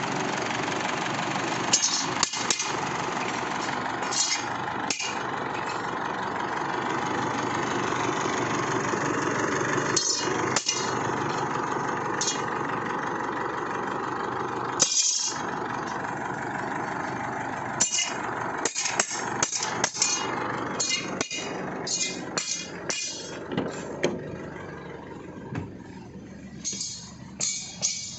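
Isuzu Alterra's common-rail diesel engine running steadily on its fresh fuel filter and suction control valve, no longer stalling, with several brief dropouts and sharp clicks; it grows quieter near the end.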